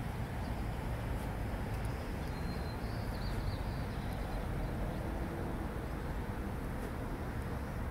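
Steady low outdoor rumble with no clear events, with a few faint high chirps about three seconds in.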